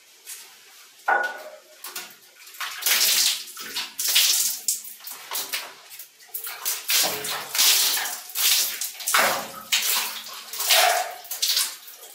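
Water splashing onto a glass shower screen in repeated, irregular surges, rinsing cleaning foam off the glass.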